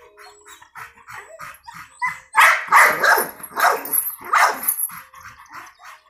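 Dogs barking repeatedly, first fainter and quick, then a run of loud barks about two a second from roughly two seconds in.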